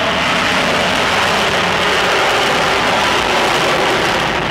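Loud, steady jet noise from several F-15D Eagles' twin Pratt & Whitney F100 turbofan engines at takeoff power, afterburners lit.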